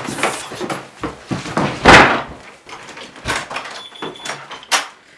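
Irregular knocks, bumps and rustles of things being handled on a desk, the loudest bang about two seconds in.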